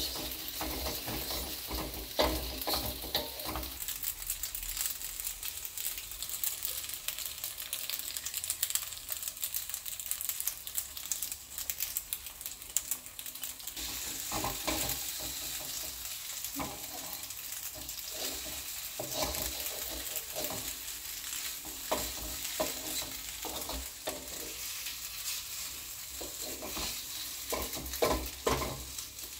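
Macaroni and egg sizzling in a wok over a gas flame, while a slotted wooden spatula scrapes and knocks against the metal pan as the food is stirred, with a few louder knocks about two seconds in and near the end.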